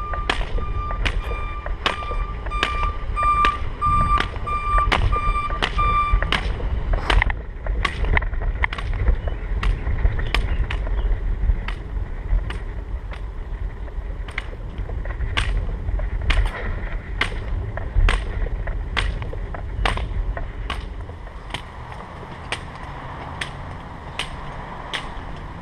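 Hiking-pole tips clicking on asphalt about twice a second as a manual wheelchair rolls along, over a low rumble of the wheels on the pavement. A pulsing electronic beep sounds for the first six seconds or so, and the rumble fades near the end.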